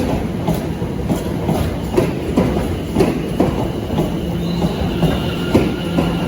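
Passenger train moving slowly over rail joints and points, its wheels clacking about twice a second over a steady rumble. About four seconds in, a thin high squeal from the wheels and a low hum join in.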